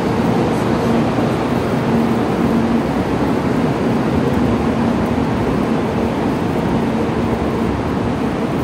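Steady rushing noise with a low hum from a Kyushu Shinkansen 800 series train standing at the platform.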